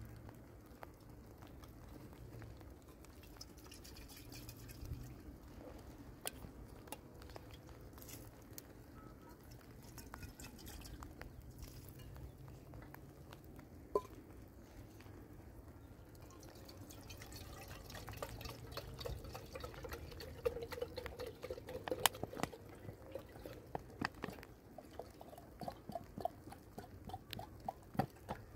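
Water dripping, a scatter of sharp little drops and splashes over a faint background hiss. The drops come thicker in the second half.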